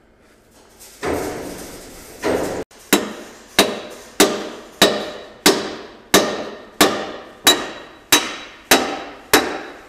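Steel hammer striking a pin in a front loader's articulation joint, about eleven even blows at roughly one and a half a second, each ringing briefly off the steel, to drive the pin home. Before the blows come a scraping rustle and a single knock.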